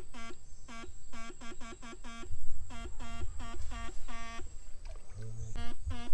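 Electric fish-stunner (setrum) buzzing: a steady-pitched buzz switched on and off about fifteen times in quick, uneven succession as the probes are worked in the water, over a faint steady high whine.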